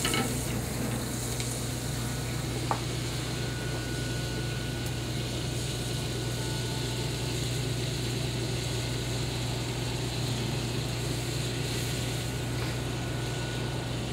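Butter and oil sizzling softly in skillets over gas burners, under the steady low hum of a commercial kitchen. A single light click about three seconds in.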